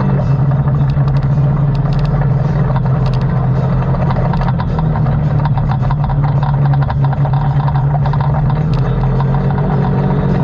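ATV engine running at a steady pitch, with scattered clicks and rattles over it.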